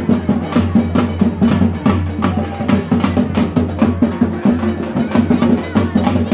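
Loud drum-led music with a quick, steady beat of sharp strikes over a sustained low drone, accompanying the dancers.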